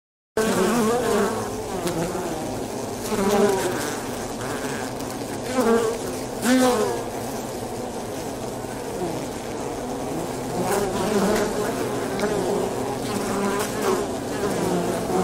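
Wing buzz of a swarm of Polybia occidentalis (avispa angolita) paper wasps at their nest, a continuous wavering hum with a few louder swells. It starts just after a brief silence.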